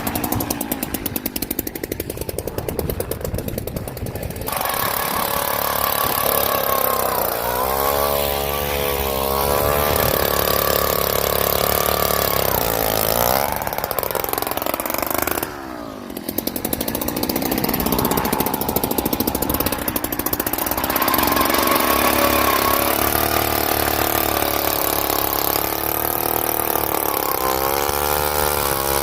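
Gas-powered ice auger's small engine running hard, its speed rising and falling several times as it bores through the lake ice, with a brief drop in speed about halfway.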